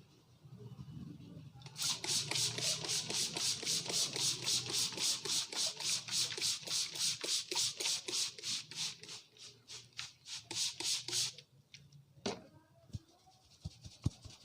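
Barber's hands rubbing briskly through hair and scalp in a head massage, making fast, even, scratchy strokes about four or five a second that stop about eleven seconds in. A single sharp click follows, then soft rhythmic thuds of hands tapping near the end.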